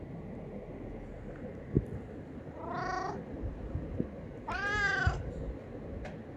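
Stray cat meowing twice while begging for food, the second meow longer and louder than the first. A single sharp knock comes shortly before the first meow.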